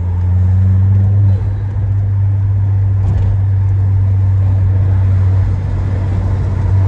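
Stage 2 tuned Peugeot 208 GT's 1.6 THP turbocharged four-cylinder engine running under way at fairly steady revs: a loud, low drone over road noise. The drone shifts slightly about a second and a half in.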